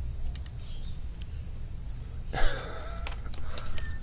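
Low, steady rumble of wind on the microphone with a few faint clicks, and one short, loud burst about two and a half seconds in.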